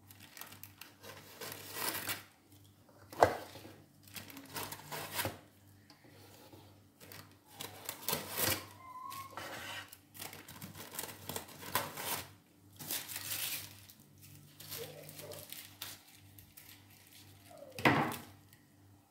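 Scissors snipping and the baking paper rustling and crinkling in irregular bursts as the paper's edges are trimmed away around a metal baking tray. Two sharp knocks stand out, one about three seconds in and one near the end, over a faint steady hum.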